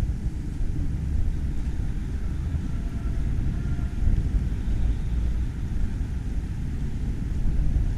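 Steady low outdoor rumble, fluctuating but with no distinct events.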